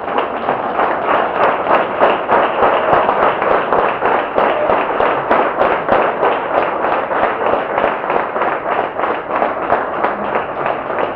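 Many people clapping, a dense unbroken run of sharp claps.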